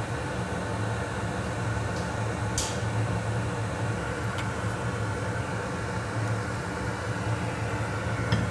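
Steady low fan hum, with a few light clicks; the sharpest click comes about two and a half seconds in.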